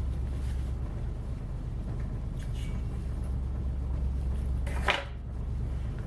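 Close-miked chewing of potatoes and corn over a steady low hum, with one sharper wet mouth sound just before five seconds in.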